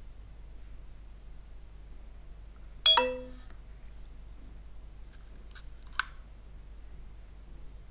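DJI Osmo Pocket 3 gimbal camera giving a short, bright electronic chime of several tones together, which dies away within half a second. About three seconds later there is a single light click as its screen is turned sideways.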